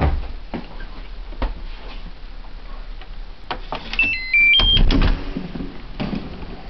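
Digital door lock playing its short electronic chime of four quick notes, stepping down and then up in pitch, about four seconds in, then a louder clatter of the handle and latch as the door opens. Scattered sharp clicks of handling and steps come before it.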